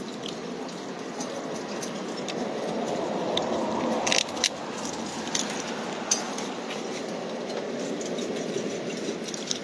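Steady street traffic noise that swells as a car passes about three to four seconds in, with scattered small clicks and crinkles throughout.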